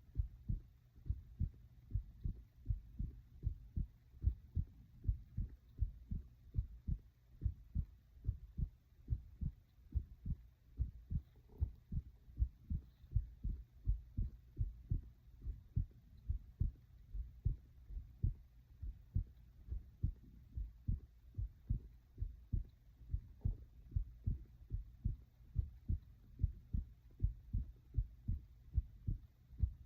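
A human heart beating, picked up close to the chest: steady, regular low thuds with no speech.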